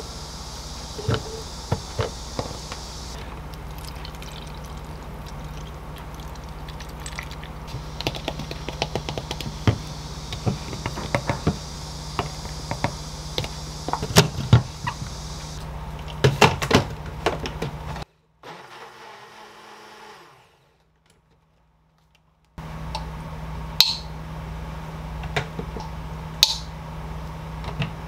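Kitchen handling sounds over a steady low hum. A run of light taps and knocks comes as food goes into a plastic personal-blender cup and its blade lid is screwed on. Past the middle the sound drops almost to silence for a few seconds.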